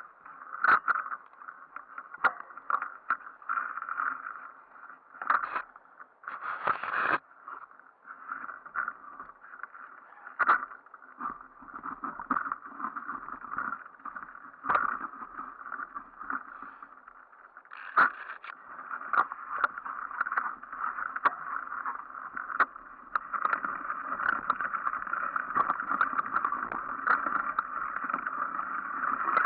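Mountain bike ridden along a leaf-covered forest trail: a steady rolling noise from the tyres and drivetrain, broken by frequent sharp knocks and rattles as the bike bounces over bumps and roots. It gets louder and fuller in the last six seconds or so.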